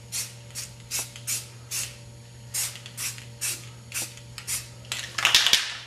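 Aerosol spray can of Rust-Oleum Painter's Touch Ultra Cover paint hissing in short repeated bursts, about two or three a second, as it is swept up and down, with a longer, louder burst near the end.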